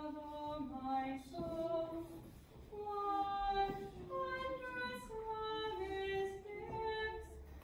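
A single high voice, a woman's, singing a slow hymn during communion, holding each note for about a second and moving up and down in small steps.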